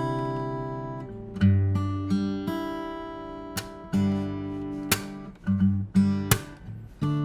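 Enya EF-200 OM-body solid-top acoustic guitar fingerpicked without an amp: ringing bass notes alternate with melody and chord notes, with a few sharp plucks.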